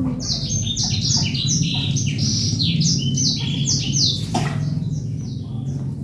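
Birds chirping busily, many short high chirps that each fall in pitch, overlapping for about four seconds before they die away, over a steady low hum.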